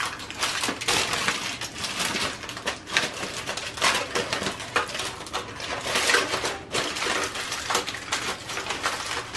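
Aluminium foil crinkling and rustling with dense crackles as the foil cover is pulled back off a foil roasting tray.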